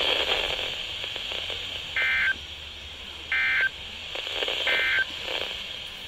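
A Midland NOAA weather radio's small speaker sends the EAS/SAME end-of-message code: three short, identical bursts of shrill digital data tones, about a second apart, beginning about two seconds in, over steady radio hiss. The bursts mark the end of the severe thunderstorm warning broadcast.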